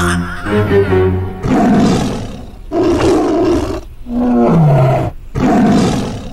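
Cartoon soundtrack: a held musical chord that stops about a second in, then four rough roar-like growls of about a second each, the third ending in a falling tone.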